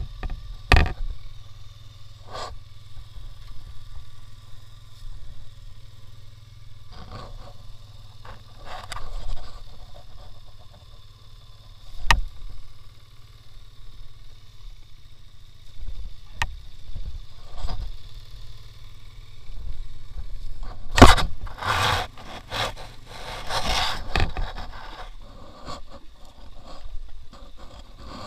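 A 2x2 off-road motorbike's engine idling low and steady, under scattered knocks and scrapes as the bike is handled, with the loudest cluster of knocks and scraping about three-quarters of the way in.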